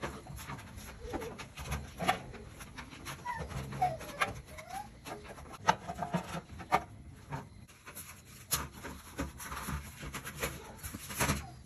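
Dobermann puppies scrabbling around in a galvanized metal tub, claws and a tin can knocking and clattering against the metal in many sharp irregular taps. A few short squeaky whimpers come about four seconds in.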